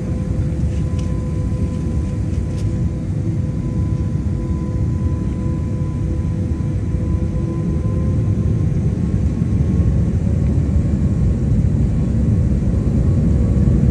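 Airliner's jet engines and rolling rumble heard from inside the cabin while the plane moves along the ground: a steady low rumble with a steady hum, slowly growing louder in the second half.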